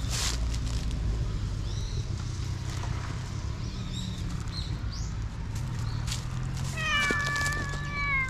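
A black stray cat meowing once, a long call starting near the end that falls slightly in pitch.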